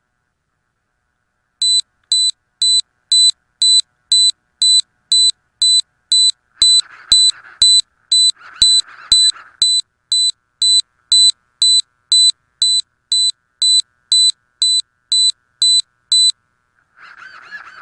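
A piezo buzzer aboard a downed Ritewing Drak flying wing beeping a single high tone about twice a second, starting a couple of seconds in and stopping near the end: a lost-model alarm sounding so the plane can be found.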